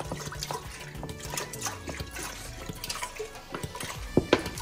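Milk pouring in a steady stream from a plastic bottle into a stainless steel pot, with background music playing.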